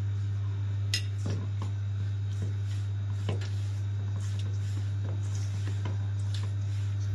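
A hand rubbing ghee into flour in a stainless steel bowl: soft crumbling and scraping, with a few light clicks against the bowl's metal side. A steady low hum runs underneath throughout.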